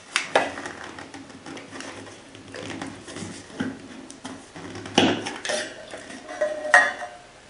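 Lid and press plunger of a stainless steel coffee press mug being twisted and drawn out. Plastic and metal click and scrape against the mug's rim, with sharp knocks about a third of a second in, at about five seconds, and near the end, the last one ringing briefly.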